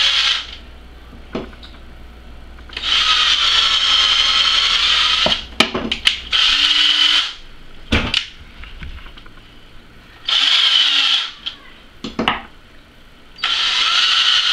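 DeWalt cordless drill whirring in about four short runs of one to two and a half seconds, spinning an ear of sweet corn on its bit while the kernels are stripped off. Sharp knocks and clicks fall in the pauses between runs.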